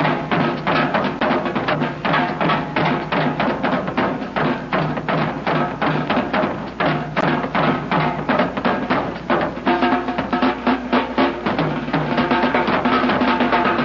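Music with fast, steady percussion, about four to five drum strikes a second, over sustained pitched notes.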